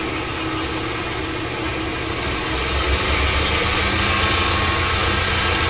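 Kerry Super 8 benchtop drill press running on its 500-watt three-phase motor, driven by a cheap SAKO VFD, with a thin high steady tone over the motor noise. It gets louder about halfway in as the drive frequency is raised.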